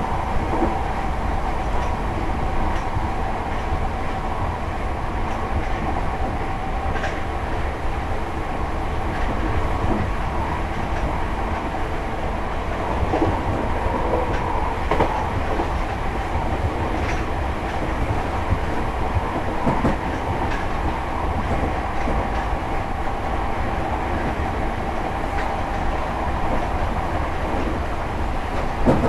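Class 313 electric multiple unit heard from inside its driving motor car while running along the line: a steady rumble of wheels on rails with a faint steady whine and a few scattered clicks of the wheels over rail joints.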